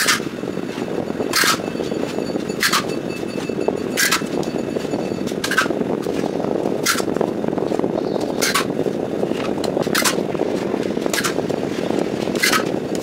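Steel plastering trowel making short scraping strokes while skim coat is loaded and dabbed onto a cement-plastered wall, about one every second and a half, over a steady low rushing noise.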